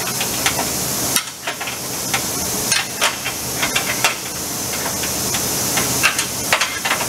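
Irregular metallic clicks and clinks of an open-end wrench turning and being repositioned on a bracket bolt as it is tightened down, over a steady hiss.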